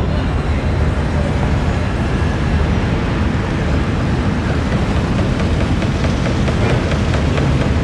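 Steady low rumble of vehicle engines.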